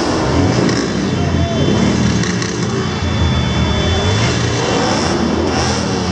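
Motorcycle engines running with a steady low rumble, over the voices of a street crowd.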